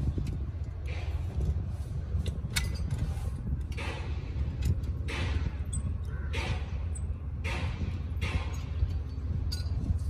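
Steel tie wire being twisted tight with pliers around rebar stirrups. Short scraping rasps from the wire come about once a second, with sharp metal clinks of the pliers against the steel bars, over a steady low rumble.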